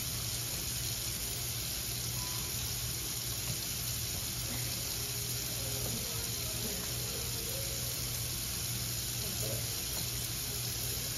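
Kitchen pull-down faucet running a thin, steady stream of water into a stainless steel sink.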